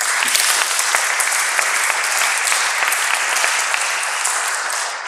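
Audience applauding steadily, fading slightly near the end.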